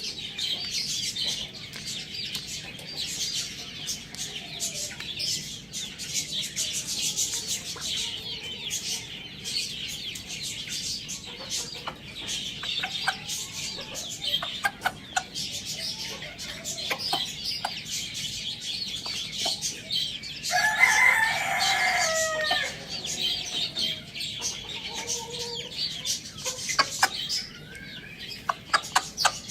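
A rooster crows once, about two-thirds of the way through, the loudest sound here, over hens clucking and constant high-pitched chirping.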